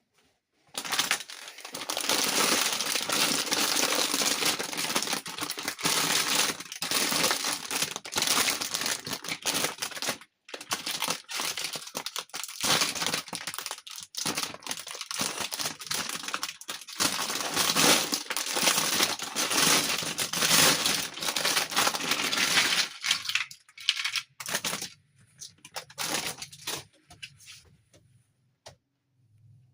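Packaging wrapper crinkling and crackling as it is handled, almost without pause from about a second in, thinning to a few scattered rustles near the end.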